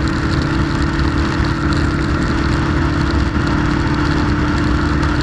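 Suzuki GS500's air-cooled parallel-twin engine running at a steady cruising speed, pitch unchanging, under a constant rush of wind and wet-road noise.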